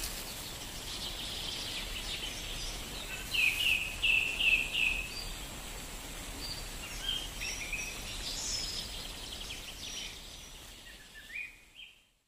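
Forest ambience: birds chirping over a steady background hiss, with a quick run of five falling chirps about three seconds in. It fades out near the end.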